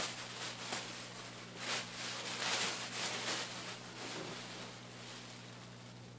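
Thin plastic bags rustling and crinkling in quick, uneven bursts as they are handled and pulled open, loudest a couple of seconds in and dying away near the end, over a steady low hum.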